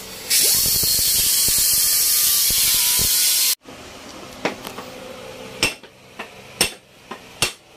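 Loud steady hiss of a compressed-air tool for about three and a half seconds, cutting off suddenly. Then four sharp hammer blows about a second apart, striking a corroded aluminium stringer in an aircraft floor structure to knock it free.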